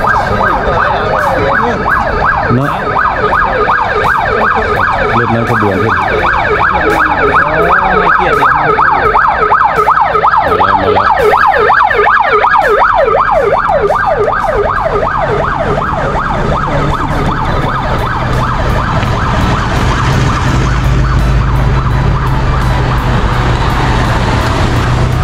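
Police car siren sounding a fast, repeating yelp as the lead car of a motorcade approaches and passes. The siren fades after about fifteen seconds, and the engine and tyre noise of following cars passing close by takes over.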